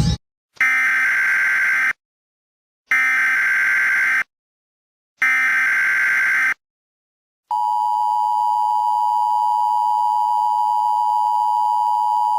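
Emergency Alert System tones. Three short bursts of the SAME digital header data tones, each a little over a second long and separated by silent gaps, are followed a second later by the steady two-tone EAS attention signal, which holds without change.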